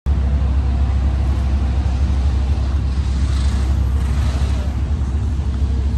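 Steady low engine rumble from a large motorised sailing yacht idling at its berth, with a general hiss of harbour noise over it.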